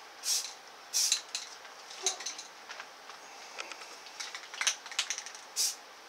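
Aerosol spray paint can spraying a green base coat in several short hissing bursts, each under half a second, with light metallic clicks between them from the can's mixing ball as the can is shaken.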